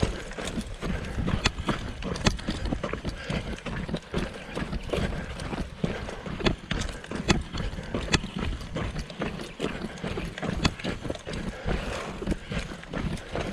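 Footsteps of a person walking quickly over dry desert scrub ground: an uneven run of knocks and scuffs, with the body-worn camera jostling.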